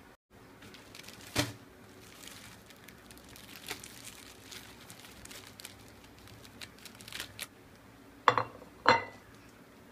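Plastic bread bag crinkling and rustling as its twisted end is undone and the bag opened, with a few crackles. Near the end, two sharp knocks about half a second apart, each with a brief ring, as a cut-glass plate is set down on the counter.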